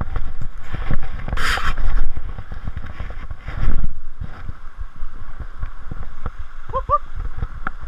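Mountain bike ridden along a rough forest trail: frequent knocks and rattles from the bike over bumps, with loud swishes of wind and brush against the camera mic. Two short rising squeaks come near the end.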